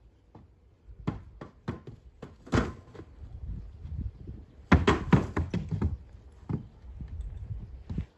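A horse's hooves knocking and thudding on the boards of a wooden ramp obstacle: an irregular string of hoof strikes, loudest about two and a half seconds in and again around five seconds in.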